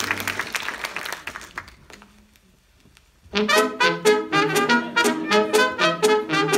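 One music track fades out and is followed by about a second of near silence. About three seconds in, a brass-led tune with a quick, sharp beat of about four hits a second starts up.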